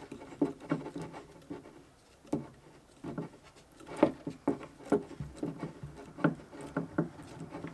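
Small wooden hand screw clamp being tightened onto a wooden block, its steel threaded rods turned by hand, giving a run of irregular light clicks and knocks.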